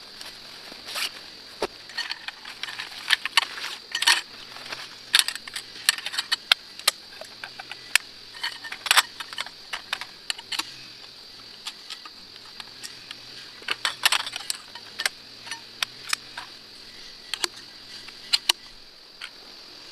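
Irregular light clicks, taps and clinks of small objects being handled, in clusters with short gaps, over a steady high-pitched insect chorus.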